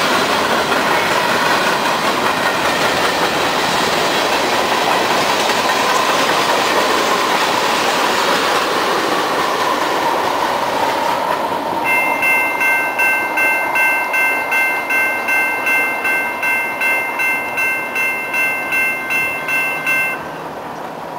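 Norfolk Southern freight cars (tank cars and covered hoppers) rolling past over the rails with a steady clatter that fades as the train moves away. From about halfway on, a grade-crossing bell rings about twice a second over it, then stops suddenly near the end as the crossing is cleared.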